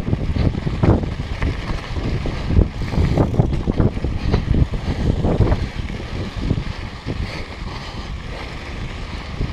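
Wind rushing over the camera microphone of a downhill mountain bike, with the knobby tyres rolling over a loose dirt-and-gravel trail and the bike rattling and knocking over bumps. It grows somewhat quieter in the second half.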